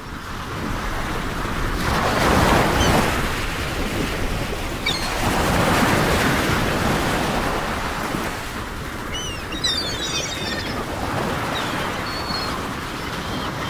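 Wind and choppy water on a wide open lake, with wind buffeting the microphone in swells, and a few faint high chirps around the middle and near the end.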